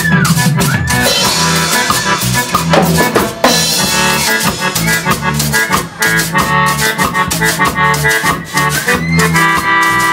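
Live cumbia band playing: an electronic keyboard carrying the melody over a drum kit, electric bass and a metal güiro scraping the steady beat.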